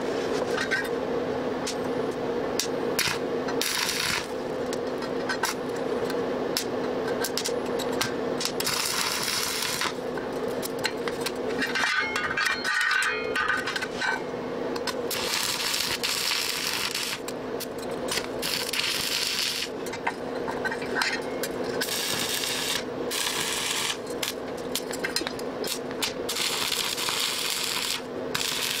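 Stick welding on thin sheet steel: a crackling, sizzling arc in many short runs, each from under a second to about two seconds long, struck and broken again and again over a steady low hum.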